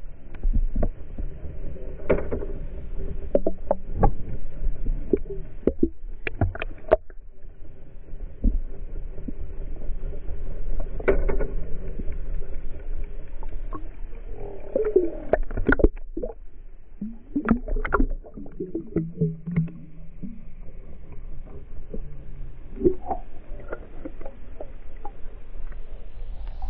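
Muffled underwater sound from a GoPro towed with a trolling spreader bar: water rushing past the camera housing over a low steady rumble, with frequent knocks and clicks from the rig.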